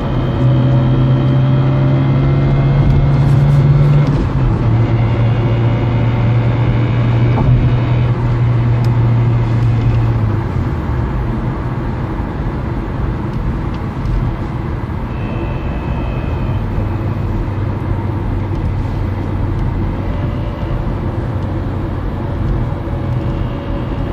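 Peugeot 307 1.6 16v four-cylinder petrol engine and gearbox running, with a strong steady low drone that steps down in pitch about four seconds in, fades out about ten seconds in, and returns lower later on. This is the gearbox noise that persists after an oil change, which the owner suspects is a faulty gearbox thrust bearing.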